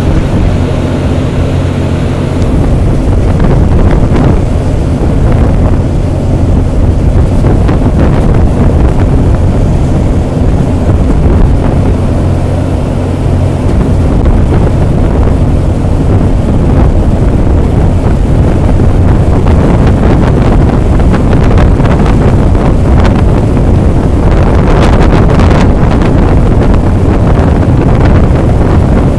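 Strong wind buffeting the microphone in a loud low rumble, over a steady low engine hum that is plainest in the first half.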